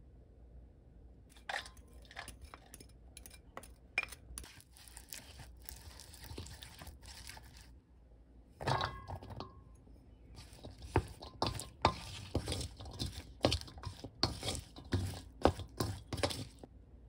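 Seasoning paste stirred in a hammered stainless-steel bowl, then garlic scapes tossed and mixed by hand in the sauce, with wet squelching and clicks and scrapes against the metal. The mixing gets louder and busier after a short pause about halfway through.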